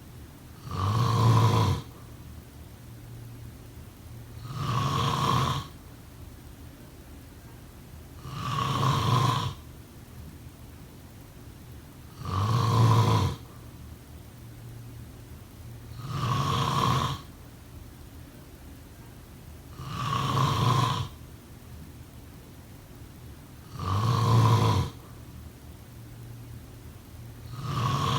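Someone snoring steadily in sleep: one drawn-out snore about every four seconds, evenly spaced.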